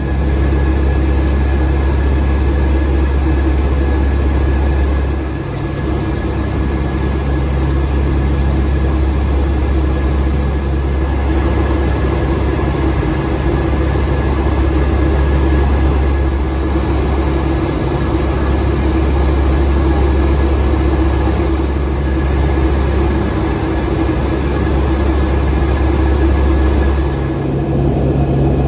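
Steady cabin drone of a Boeing 757-200 in flight: airflow and its Rolls-Royce RB211 engines, a deep rumble with a thin steady whine on top. The noise dips briefly twice.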